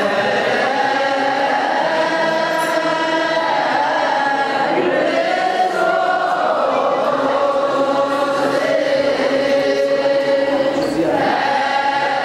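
A group of voices chanting together in Ethiopian Orthodox church chant, with long held notes that slowly rise and fall.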